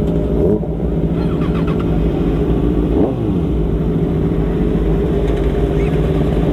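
Kawasaki Ninja sport-bike engine idling among other sport-bike engines, with a short rev that rises and falls about three seconds in.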